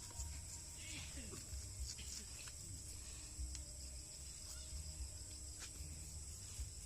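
Steady high-pitched chorus of crickets, with a low rumble underneath and a few faint clicks.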